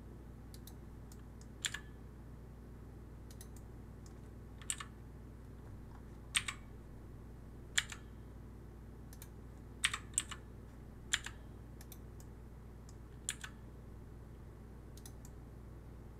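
Computer keyboard keys and mouse buttons clicking: scattered sharp clicks every second or so, many in quick pairs, over a steady low hum.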